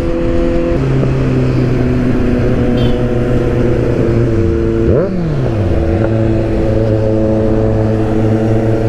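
Kawasaki Z900 inline-four running at highway speed, with wind rush over the mic. About a second in, its note steps down as it shifts up. Around the middle, another engine's note rises and falls as it revs past.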